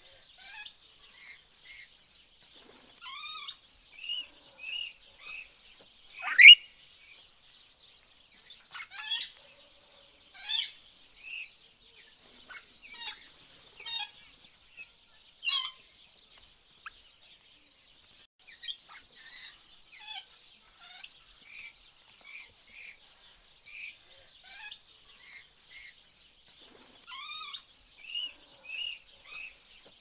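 Eurasian siskin calling: series of short, high chirps in quick groups, with one loud call sliding steeply downward about six seconds in, over a faint steady high buzz.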